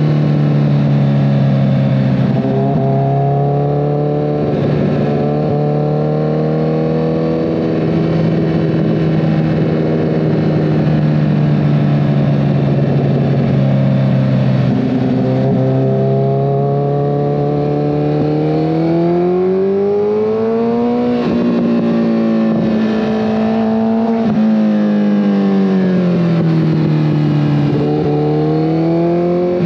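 2014 Kawasaki ZX-14R's inline-four engine running through a full Brocks Alien Head 2 exhaust while cruising. The engine note holds steady for the first half, then climbs in pitch as the bike speeds up, holds, and drops back down near the end.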